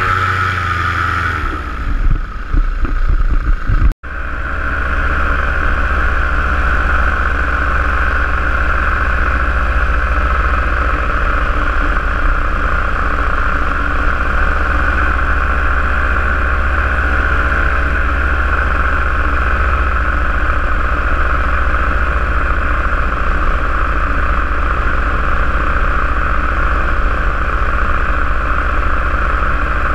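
Paramotor engine and propeller running steadily in flight, an unbroken drone at constant pitch. In the first seconds the pitch glides down and the sound turns rough, then it cuts out abruptly for an instant about four seconds in before the steady drone resumes.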